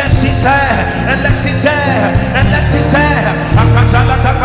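Loud live church music with a steady, heavy bass line, and voices crying out over it in congregational prayer.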